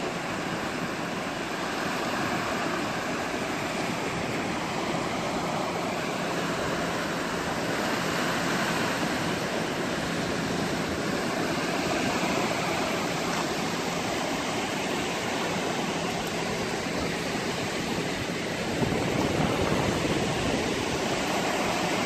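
Sea surf breaking and washing on the shore, a steady, even rushing sound.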